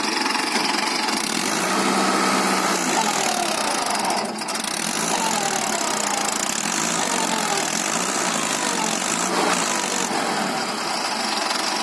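Mahindra 555 DI tractor's diesel engine running hard under load, its revs rising and falling as the driver tries to pull the stuck tractor and loaded trolley out of the mud.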